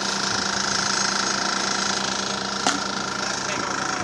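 An engine running steadily at constant speed, with one sharp click about two and a half seconds in.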